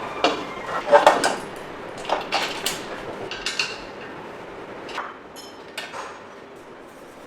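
Irregular light metallic clinks and knocks of an e-bike's front fender and its screws being handled and fitted, in short clusters that thin out over the last second or so.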